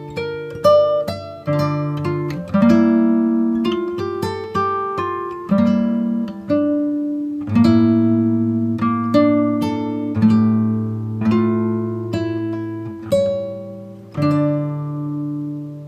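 Background music: acoustic guitar playing slow plucked notes and chords, each ringing out and fading.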